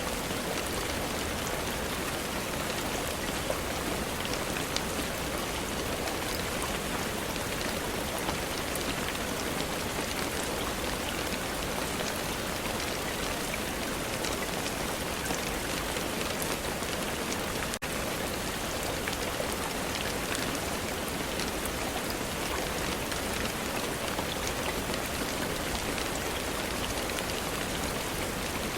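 Steady rain falling, a dense even hiss with scattered sharp drop ticks. The sound dips for an instant about two-thirds of the way through.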